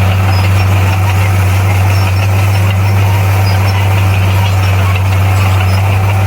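Heavy diesel engine of earthmoving machinery running steadily, a deep constant hum with no revving.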